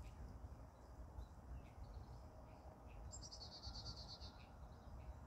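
Near silence: faint outdoor background with a low rumble. About three seconds in comes a high, rapid trill lasting about a second and a half.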